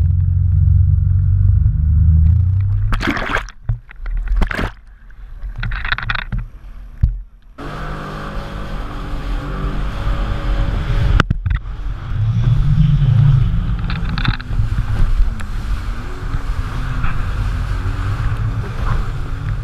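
Sea-Doo jet ski running at speed, a steady engine and pump drone whose pitch wavers as the throttle changes. Heavy low rumble and gusts of wind on the mounted camera's microphone fill the first few seconds.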